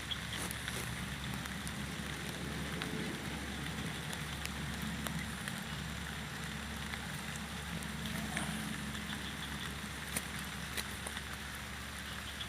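Heavy rain falling steadily, with scattered drop ticks.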